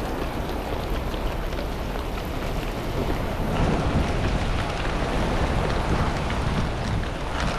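Rain falling on a moving car, with steady road noise and scattered drops ticking; it grows louder about halfway through.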